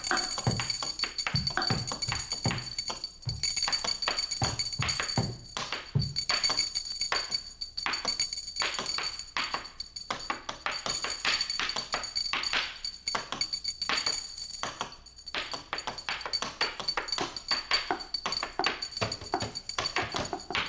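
Instrumental band music from bass, drums and guitars: busy, irregular percussive hits with a steady high tone underneath.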